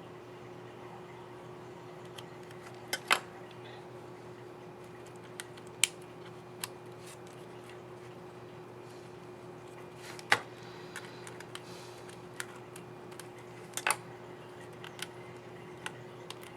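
Small sharp plastic clicks and snaps from a laptop keycap and its scissor mechanism being handled and pressed into place on the keyboard, coming at irregular intervals, a few of them louder. A steady low electrical hum lies underneath.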